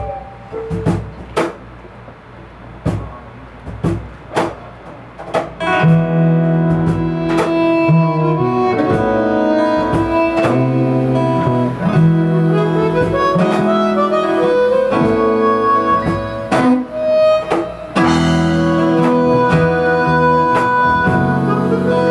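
Live acoustic band music with no singing: a guitar plays sparse strummed chords, then from about six seconds in fuller playing with sustained melody notes joins in.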